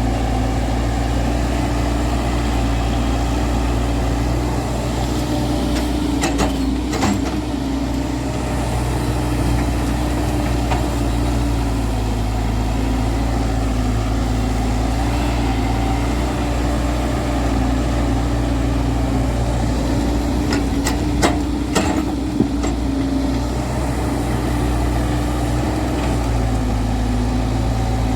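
JCB JS140 excavator's diesel engine running steadily, with a few sharp metallic knocks about six seconds in and again about twenty seconds in.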